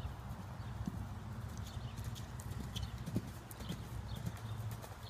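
Hoofbeats of a ridden horse cantering on grass and dirt, irregular dull thuds over a steady low rumble.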